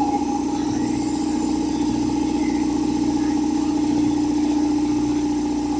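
Belt-driven piston air compressor running steadily after a cold start from long storage, its pump building pressure in the tank with an even, rapid pulse under a constant hum.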